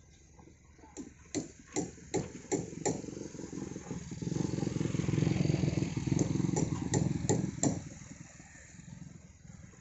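A motorcycle engine swells up and fades away as it passes, about four to eight seconds in. A series of sharp knocks, a couple a second, comes before it and again near its end.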